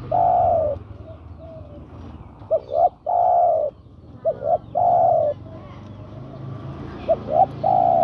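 Spotted dove (tekukur) cooing, a male's call to a female: a phrase of two short rising coos and then one longer held coo, repeated about four times.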